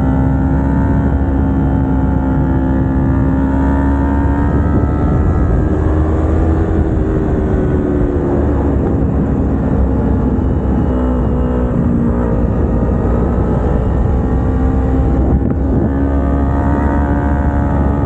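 Kawasaki Ninja 250R's parallel-twin engine running under way, its pitch drifting up and down with the throttle: dipping about two thirds in and climbing again near the end. A heavy low rush of wind on the microphone lies under it.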